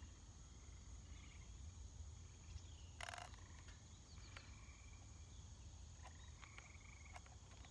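Near silence with a faint outdoor insect chorus: a steady high-pitched trill with scattered short chirps, and a brief rustle about three seconds in.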